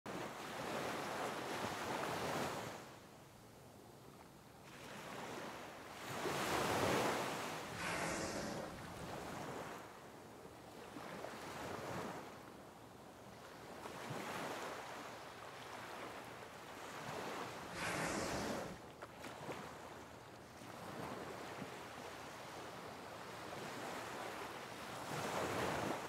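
Wind rushing over the microphone with sea water washing, swelling and fading every few seconds, with two louder rushes about seven and eighteen seconds in.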